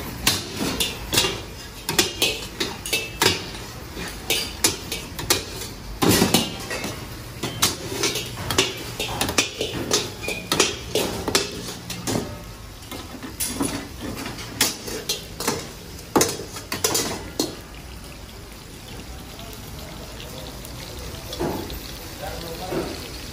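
Metal tongs and a ladle clanking against steel karahis and their domed lids, in quick irregular strikes as lids are lifted and the cooking meat is turned. The clatter thins out about three quarters of the way through, leaving a steady background noise.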